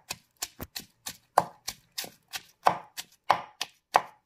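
Pestle pounding unpeeled garlic in a mortar: a quick, uneven run of sharp knocks, about four a second, crushing the garlic into small pieces.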